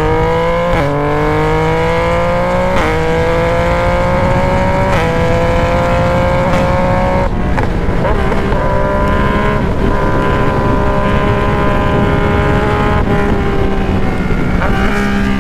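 Yamaha Tracer 900's inline-three engine through an open, straight-piped exhaust, pulling hard at full throttle: the pitch climbs and drops back at several quick upshifts in the first seven seconds, then holds a steady high-speed drone. Wind rushes over the microphone throughout.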